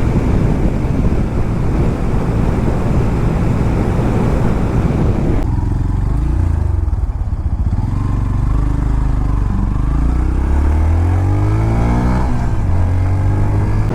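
Yamaha FZ V4 motorcycle's single-cylinder engine running on the road, buried at first under heavy wind noise on the microphone. About five seconds in the wind drops away and the engine is heard plainly. Near the end it rises in pitch as the bike accelerates, then drops suddenly.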